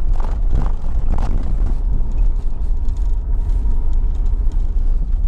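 Car driving slowly on a rutted, corrugated dirt road: a steady low rumble of engine and tyres.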